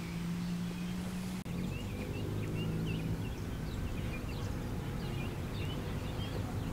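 Outdoor ambience: many short bird chirps over a steady low hum.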